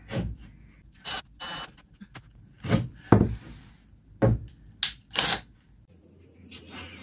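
A series of short, sharp knocks and scrapes from pine timber battens and a cordless drill-driver being handled while screws are lined up in a wooden frame. There are about eight separate hits, several with a dull thud, spread over the first five seconds.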